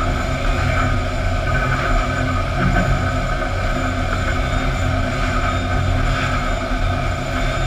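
Steady, continuous din of a sawmill's fence-board production line: chain conveyors and transfer decks running, with a constant machinery hum.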